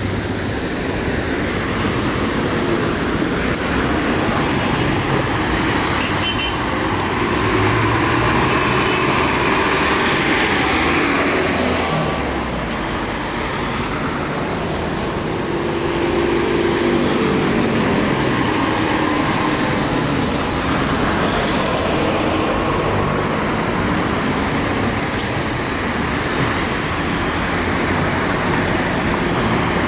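Steady city street traffic: cars and a minibus driving past with engine hum and tyre noise on the road, swelling each time a vehicle passes.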